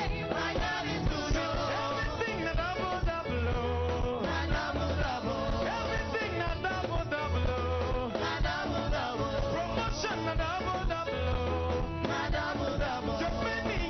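Live gospel worship music: a band playing with voices singing over a steady bass line.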